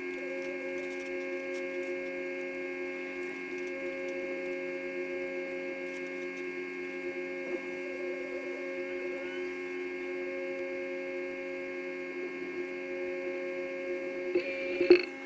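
Steady multi-tone hum of an idling heavy tow truck's engine and hydraulics. Near the end, a few sharp clunks as the rollback's cab door is opened.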